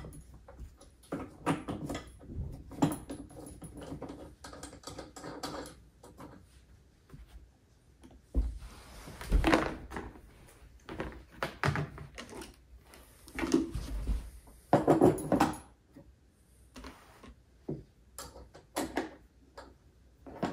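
Plastic parts of a kids' ride-on car being handled and fitted together during assembly: irregular clicks, knocks and light rattles, with louder bunches of knocking about halfway through and again a little later.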